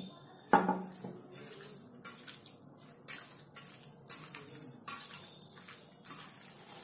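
Raw chicken pieces being mixed with marinade by hand in a stainless steel bowl: irregular wet squishing with light knocks of hand and meat against the bowl. A single sharper knock comes about half a second in.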